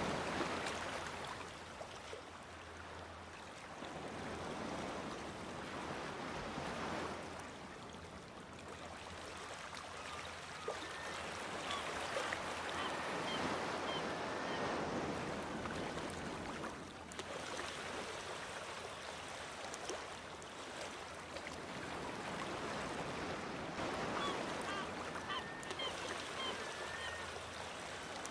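Sea waves breaking on rocks, the surf swelling and easing in slow surges every few seconds, with short high bird calls now and then.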